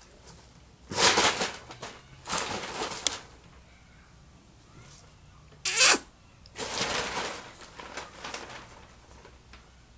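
Ratchet wrench clicking in five short rasping bursts, with the loudest about halfway through, as spark plugs are worked loose with a socket.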